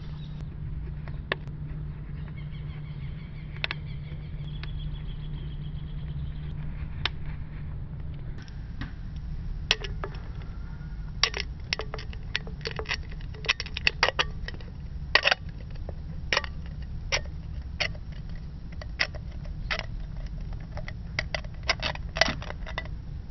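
Thin aluminium drink can being cut open: a utility knife blade scores around the can wall, then the can is flexed back and forth along the score line, its metal giving many sharp clicks and crackles in the second half as it cracks apart.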